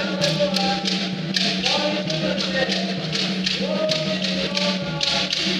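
Traditional Kom choir singing, with hand percussion keeping a steady beat of sharp strokes.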